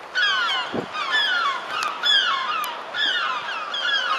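A flock of birds calling at once: many short calls, each falling in pitch, overlapping several times a second. A brief low thump comes just under a second in.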